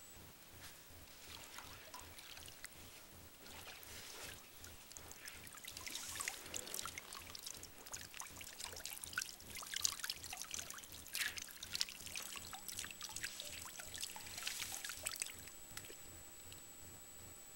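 Water sloshing and splashing in a galvanized metal tub as a person shifts around in it: many small splashes, few at first and busiest over the middle and later part.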